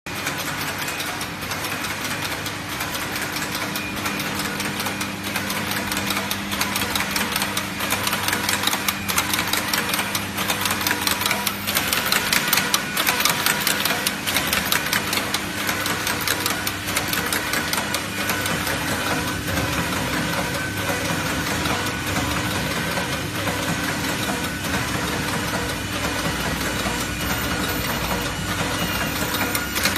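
Computerized flat knitting machine running: a dense, rapid clatter of needles and carriage over a steady hum.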